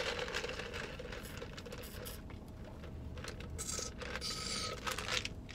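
Soda being sipped through a plastic straw from a fountain cup, with a couple of short hissy slurps about three and a half to four and a half seconds in, over a steady faint hum inside a car.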